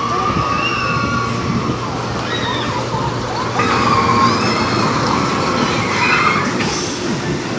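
Amusement-park ride noise: several high, wavering squeals that rise and fall and overlap, over a steady low hum.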